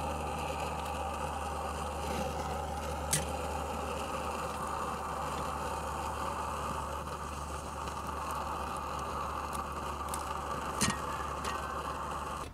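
Brass liquid-fuel camp stove burning under a sandwich iron with a steady rushing noise, broken twice by a sharp metallic click, once a few seconds in and once near the end.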